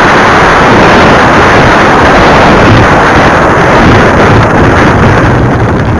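Loud, steady rushing noise picked up by the onboard camera of a kerosene-turbine RC model jet skimming the grass and touching down: wind over the airframe and grass brushing the fuselage. It eases off slightly near the end.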